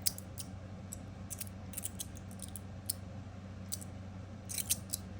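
Heavy stainless steel magnetic fidget slider being worked in the hand, its plates sliding and snapping into place with light, irregular clicks, some in quick clusters.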